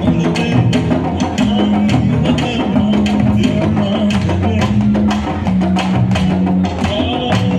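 Live candombe drumming: a dense, fast clicking of sticks on the drums over held low notes that change every second or so, with no singing.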